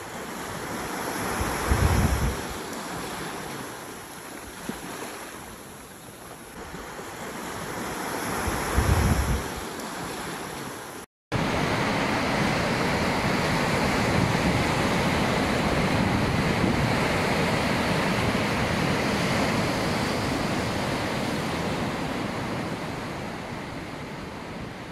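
Sea waves wash against a rock breakwater, two swells building and breaking about seven seconds apart, with wind buffeting the microphone. The sound drops out briefly about eleven seconds in, then gives way to a steadier wash of surf over the shallows.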